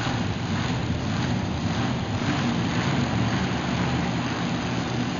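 Monster truck engines running steadily, an even low engine note with no revving.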